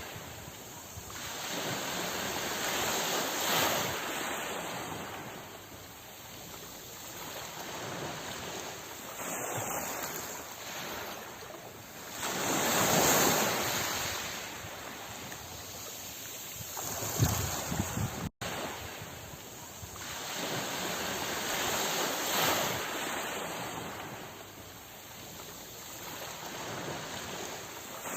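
Sea waves washing ashore, the rush of surf swelling and ebbing in slow surges several seconds apart, loudest about halfway through. A split-second dropout cuts the sound about two-thirds of the way in.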